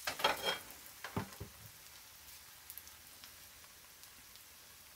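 Thin chapati batter cooking in a lightly oiled nonstick frying pan, with a faint, crackly sizzle. In the first second and a half, a few knocks and scrapes as the pan is handled on the stovetop.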